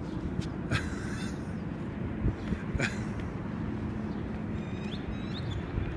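Steady low outdoor background noise, with two short sharp sounds and a few brief high chirps near the end.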